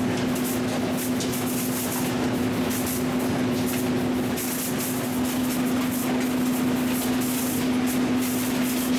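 Recycling-plant optical sorter and conveyor running, a steady machine hum under many short hissing blasts of compressed air from the sorter's jets blowing containers off the belt.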